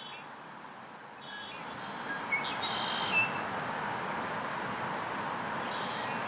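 Male red-winged blackbird singing a few short song phrases, the loudest two to three seconds in, over a steady hiss of rain that grows louder about a second in.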